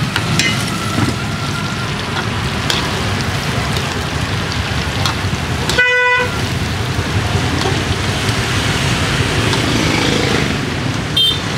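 Hot oil sizzling steadily as pork pieces deep-fry, with street traffic around it. A short vehicle horn toots once about six seconds in, and a brief high beep sounds near the end.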